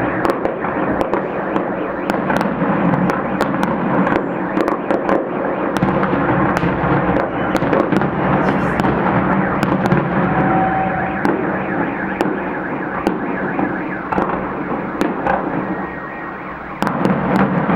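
A fireworks salute: a continuous din of bursting shells peppered with many sharp cracks. It eases slightly for a couple of seconds late on, then loud bursts resume near the end.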